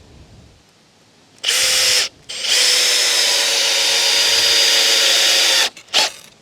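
Power drill driving screws into the table's wooden frame: a short spin, a pause, then a steady whine for about three seconds that stops abruptly, and a brief blip near the end.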